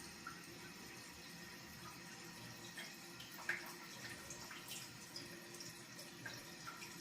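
Faint water trickling with scattered small drips and droplet blips, one a little louder about three and a half seconds in.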